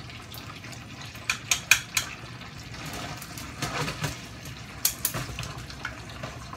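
Chicken livers frying in a non-stick pan with a steady low sizzle. Chopsticks click sharply against the pan as the pieces are turned: a quick run of taps about a second in and a few more about five seconds in.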